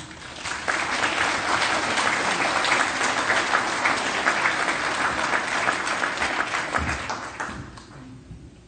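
An audience applauding. The clapping builds up in the first second, holds steady, then thins and fades out near the end.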